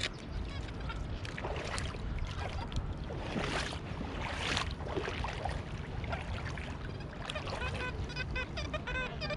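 XP Deus 2 metal detector giving a run of short pitched beeps, repeating evenly and growing louder near the end as the coil passes over a non-ferrous target. Two swishing noises come around the middle, over a steady low rumble.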